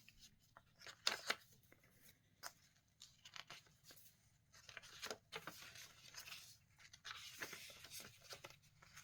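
Faint rustling and crinkling of paper as the pages of a handmade junk journal are turned and handled, with scattered small clicks and a longer rustle in the second half.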